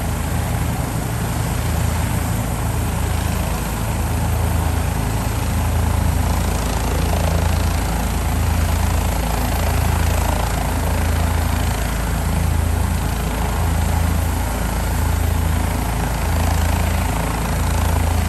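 Medical helicopter's engine and rotor running on the ground ahead of lift-off: a steady loud noise with a low throb that swells and fades about every second and a quarter.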